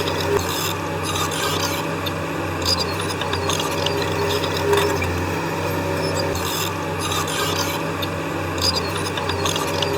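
Shantui D17 crawler bulldozer's diesel engine running steadily under load, with its steel tracks scraping and clanking every second or two as it moves.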